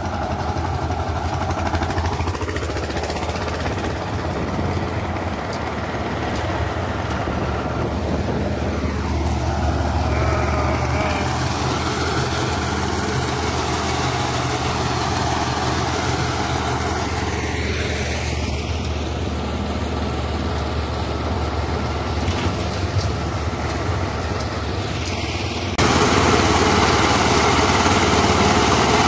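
Engine of a walk-behind two-wheel tractor (power tiller) running steadily while it pulls a loaded trailer along a road. Near the end it gets suddenly louder.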